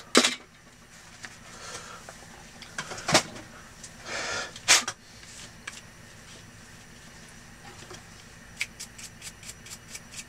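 Small plastic camera mount being handled on a workbench: a few sharp clicks and knocks, a brief rustle, then a quick run of light clicks, about six a second, near the end.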